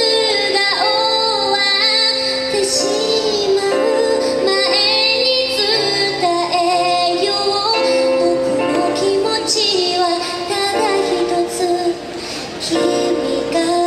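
A woman singing a slow ballad live, backed by a small band.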